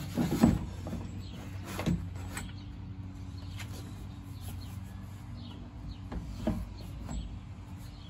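Steel axle shaft carrying a pneumatic tire being slid into the axle channel of a plastic RV waste tote: a few clunks and scrapes, the loudest about half a second in, others near two seconds and six and a half seconds, over a steady low hum.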